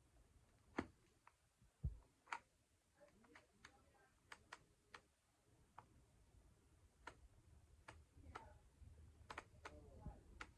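Faint, irregular clicks and taps of small objects being handled, with some light rattling between them.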